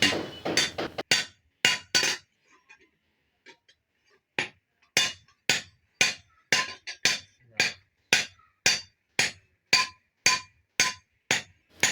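Blacksmith's hammer striking metal on an anvil with a ringing clang: a few blows, a pause of about two seconds, then steady blows about three a second.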